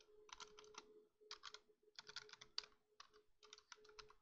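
Faint typing on a computer keyboard: quick runs of keystrokes with short pauses between them, over a low steady hum.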